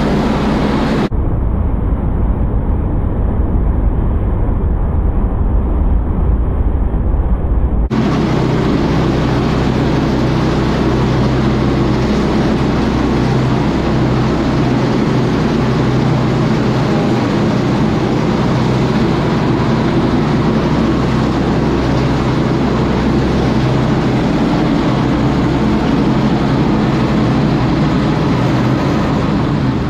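Small gas-powered bedding chopper running steadily, its engine driving a drum of knives that chops straw and blows it out the side. The sound is muffled from about a second in until about eight seconds, then clearer.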